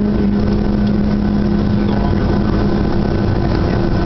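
Boeing 737-300's CFM56-3 turbofan engines running at low thrust as the jet taxis, heard from inside the cabin: a steady roar with a low hum whose tone fades out near the end.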